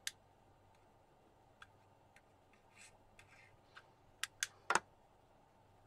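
Light clicks and taps of a handheld magnetic-field probe and small objects being handled on a desk, a few faint ones and then three sharper taps past four seconds in, the last a louder knock.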